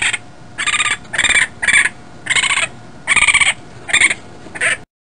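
Japanese raccoon dog calling: a run of about seven short, high calls, each roughly a third of a second long, repeating irregularly about once every half second to second. The sound cuts off abruptly near the end.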